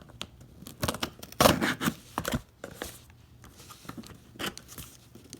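A shipping package being opened by hand: irregular tearing, cutting and rustling of tape and packaging, loudest about a second and a half in.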